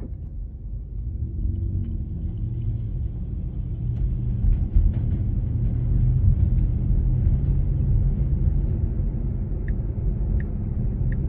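Low road and tyre rumble of a Tesla Model 3 on the move, growing louder over the first few seconds as the car gathers speed. Near the end the turn-signal indicator starts ticking steadily, about every 0.7 s, as the car signals a left turn.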